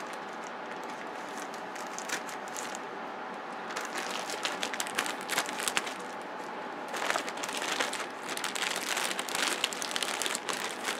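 White plastic poly mailer bag crinkling as it is handled and torn open by hand, the rustling getting busier and a little louder from about four seconds in.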